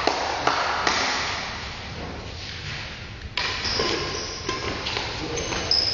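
Badminton rally: sharp racket strikes on the shuttlecock and short high squeaks of shoes on the court floor, echoing in a large hall.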